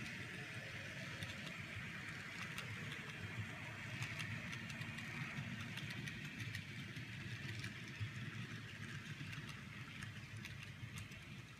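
N scale model passenger cars rolling past on the track: a low rumble of wheels on rail with scattered small clicks, slowly fading as the last car goes by.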